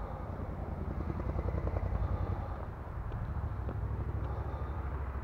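Low, fluttering rumble of wind buffeting the camera microphone while riding, with a few light clicks over it.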